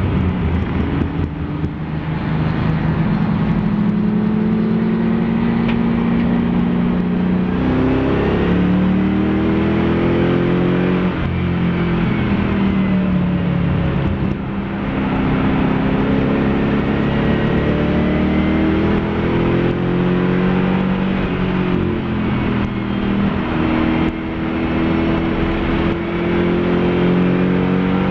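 Mopar-engined Nissan Fairlady Z race car at speed, its engine note climbing under acceleration and then dropping sharply at gear changes and braking, several times over.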